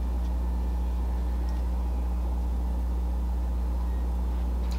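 Steady low hum with a few faint higher overtones, unchanging in level and pitch.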